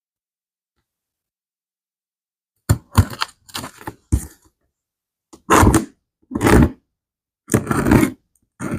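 Packing tape on a cardboard shipping box being slit open. It starts about three seconds in as a run of short crackling, tearing bursts, with sharp clicks first and then longer rasping tears.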